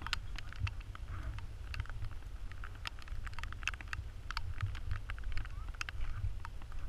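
Wind rumbling on the microphone, with scattered sharp ticks and taps coming at irregular intervals.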